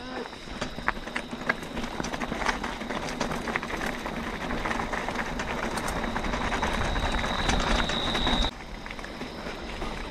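Bicycle rolling over a rough dirt trail: continuous tyre noise with many small clicks and rattles from the bike. It grows louder and drops off sharply near the end.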